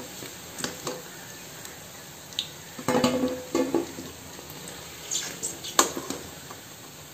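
Pakoras frying in hot oil in a kadhai, a steady sizzle, with clinks and scrapes of a perforated metal skimmer against the pan as they are lifted out, the loudest knocks about three and six seconds in.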